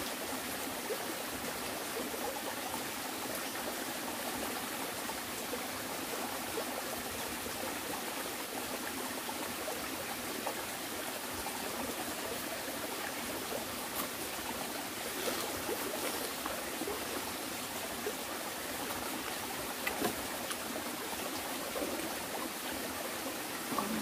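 Mountain stream running over rocks: a steady rush of flowing water, with a few faint clicks about halfway through and again later.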